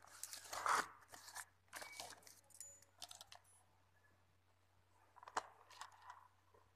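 Plastic packaging and a small cardboard box rustling and crinkling as they are handled, in several short bursts, the loudest about a second in. A sharp click comes about five and a half seconds in.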